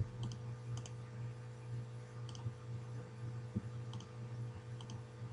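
A handful of faint, scattered clicks from a computer mouse and keyboard over a steady low electrical hum.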